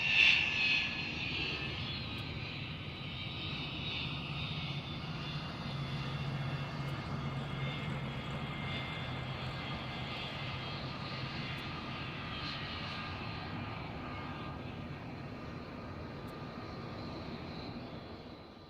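Jet aircraft on an airport runway: a high turbine whine over a low engine rumble, loudest in the first second with the whine dipping slightly in pitch, then running steadily and fading out near the end.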